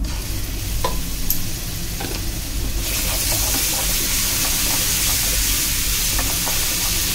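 Ginger-garlic paste sizzling as it hits hot oil with mustard seeds and spices in a steel pan. The sizzle grows louder about three seconds in as the paste is stirred with a spatula, with a few light taps of the spoon in the first two seconds.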